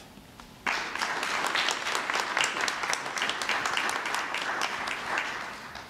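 Audience applauding, starting suddenly just under a second in and dying away near the end.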